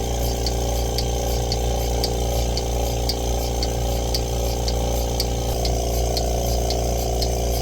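Milking machine running on a cow: the vacuum pump hums steadily while the pulsator clicks evenly, about twice a second.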